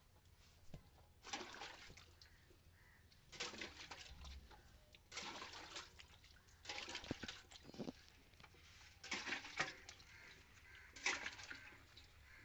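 Milk squirting from a cow's teats into a steel pail during hand-milking, coming as faint splashy bursts about every two seconds.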